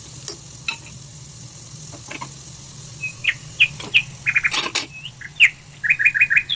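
A small bird chirping in short, high notes, starting about three seconds in, with quick runs of four or five chirps near the middle and again near the end. A few sharp knocks and scrapes of a spatula and food in a cooking pot come in between, the loudest just past the middle.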